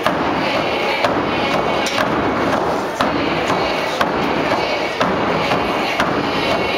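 Hide frame drums struck in a steady unison beat, with strong strokes about once a second and lighter ones between, under a group singing a potlatch dance song.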